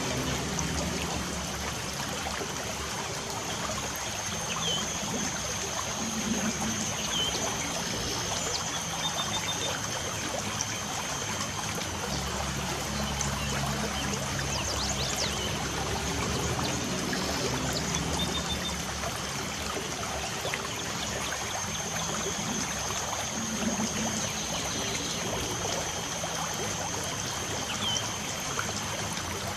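Light rain falling steadily, with small birds giving short chirps now and then.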